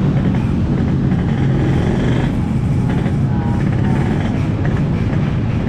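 Yamaha RX-King 135cc single-cylinder two-stroke engine running steadily through its expansion-chamber exhaust, tuned for a deep 'ngorok' (snoring) note.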